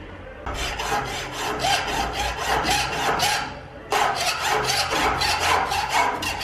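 Hacksaw cutting a thin metal tube held in a bench vise: quick back-and-forth strokes, about four to five a second, with a short pause a little past halfway before the sawing resumes.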